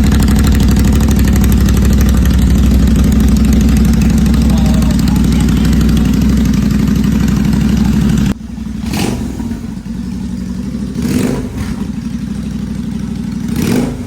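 Royal Enfield GT 650's 648 cc parallel-twin engine running with both exhausts removed, straight off the open header pipes, very loud. About eight seconds in the sound drops off sharply to a quieter engine note with three short blips of the throttle.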